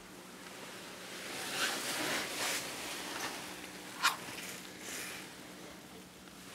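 Faint rustling and handling noise of someone moving about in a car seat, with one short click about four seconds in.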